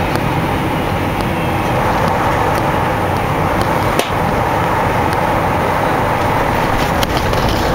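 Cabin noise inside a Boeing 747 rolling on the ground after landing: a loud, steady rush of jet engine and airflow noise with rumble from the landing gear. There is a sharp knock about four seconds in and another about seven seconds in.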